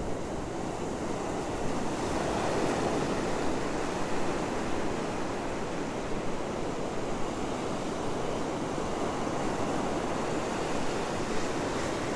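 Ocean surf breaking and washing up the sand: a steady rush of surf that swells a little a couple of seconds in.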